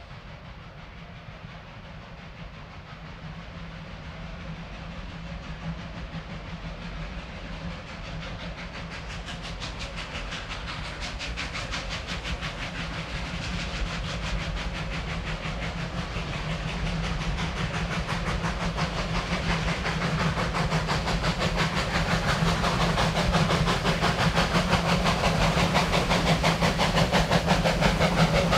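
Two NA class narrow-gauge steam locomotives double-heading a train, their rapid exhaust beats growing steadily louder as they approach and draw near.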